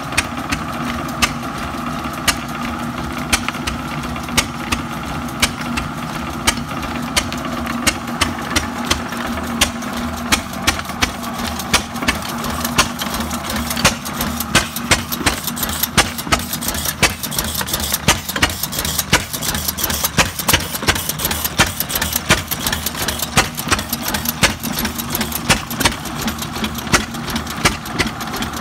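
6hp Fairbanks Morse single-cylinder stationary engine running under light load, driving a flat belt to a crosscut saw whose blade spins free. It fires in sharp bangs at uneven intervals, about one or two a second at first and more often in the second half. A steady hum lies under it for the first half.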